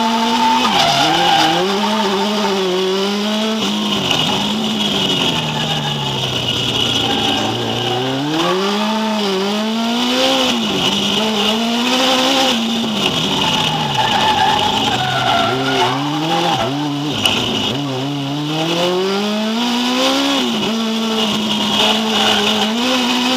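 Drift car's engine, heard from inside the cabin, revving up and down again and again as the car is thrown sideways, over a steady high tyre squeal.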